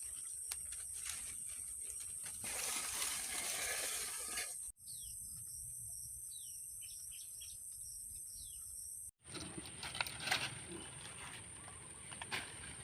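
A steady high insect drone runs throughout. In the middle few seconds there is a run of short, falling bird chirps. Brief rustles and clicks come before and after them.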